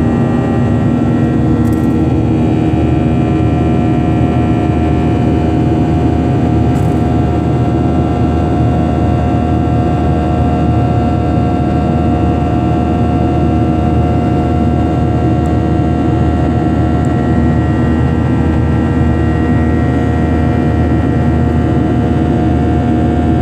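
Jet airliner cabin noise while climbing out after takeoff: a steady engine drone and rush of air, with several steady engine tones running through it.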